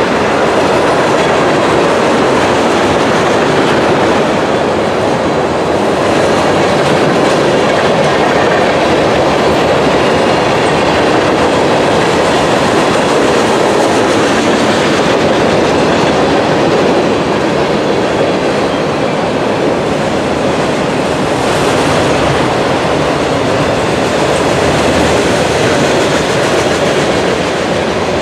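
Freight train cars rolling past at close range, a loud, steady rush of wheels on rail with clickety-clack from the wheels crossing rail joints.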